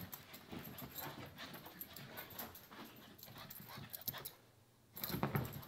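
A pug scrambling and burrowing on a fabric couch, with her own hard breathing and snuffling, worked up after a walk. The scuffling stops briefly about four seconds in, then a louder bump and scramble follows near the end.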